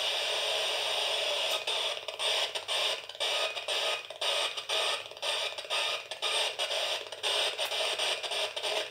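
Homemade spirit box, a hacked FM radio that scans continuously, giving out a steady hiss of radio static. From about a second and a half in, the static is chopped by short gaps about twice a second as the radio steps through frequencies.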